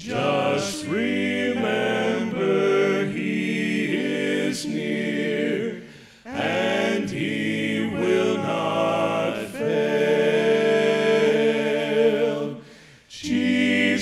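Male vocal quartet singing a gospel hymn a cappella in close harmony, in sung phrases with two short breaks, about six and thirteen seconds in.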